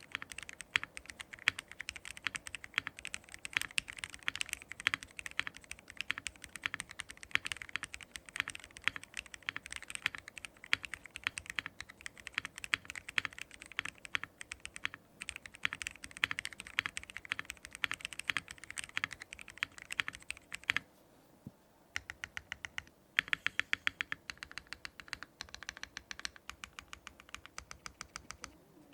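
Typing on a Mr Suit custom mechanical keyboard with lubed Everglide Aqua Water King linear switches and DSA keycaps, built without foam: a soft, creamy sound with no hollowness. Fast, steady keystrokes thin to a few scattered presses about two-thirds of the way through, then pick up again.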